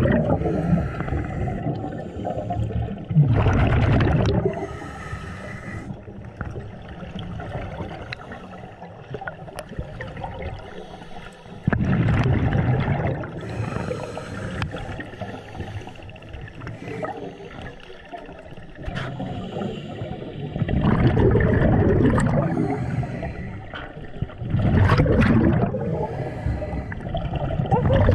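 Scuba diver breathing through a regulator, heard underwater: a bubbling rush of exhaled air every few seconds, with a fainter hiss of inhaling between the breaths.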